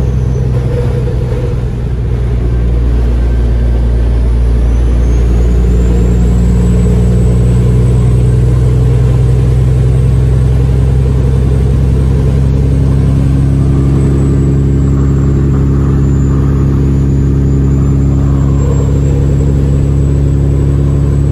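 Kenworth W900L semi truck's Caterpillar diesel engine droning steadily while cruising down the highway, heard from inside the cab, with a faint high whine rising and falling above it.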